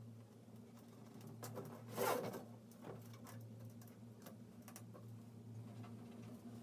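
A plastic sign being handled and scraped against the rim of a toilet tank: faint rustles and clicks, with one louder scrape about two seconds in. A steady low hum runs underneath.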